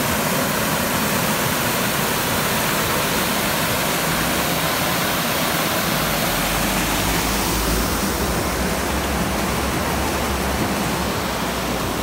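Small waterfall pouring over rocks and a stone wall into a pool: a steady rush of falling water. A deeper low rumble joins about halfway through.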